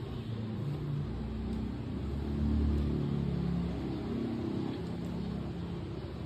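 Cat purring while being brushed: a low, pulsing rumble that grows loudest about halfway through.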